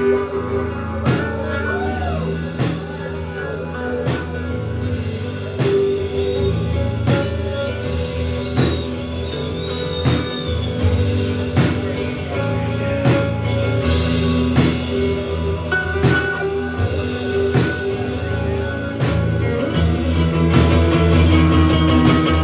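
Live rock band music: guitar playing notes that bend up and down over a drum kit beat, with no singing.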